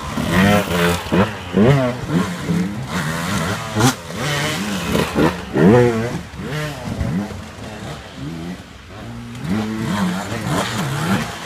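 Enduro dirt-bike engines revving in quick throttle blips, the pitch rising and falling again and again as the bikes crawl over trail steps. The blips ease off for a couple of seconds past the middle, then the next bike comes in.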